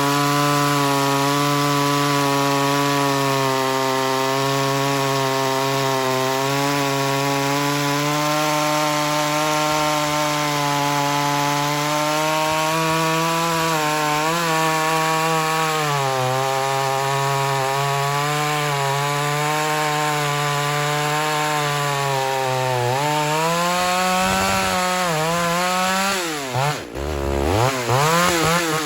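Ported Homelite Super XL-925 82cc two-stroke chainsaw running hard in a long cut through red oak, engine speed held nearly steady with slight dips under load. Near the end the engine drops off and is revved up and down several times.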